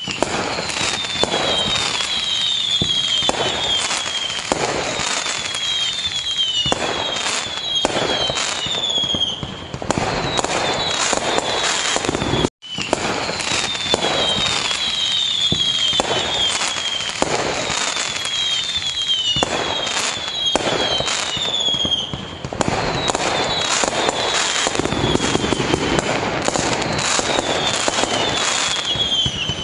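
Fireworks display: a dense, continuous barrage of bangs and crackling from many shells, with runs of short, high, falling whistles every few seconds. The sound cuts out to silence for an instant about twelve and a half seconds in.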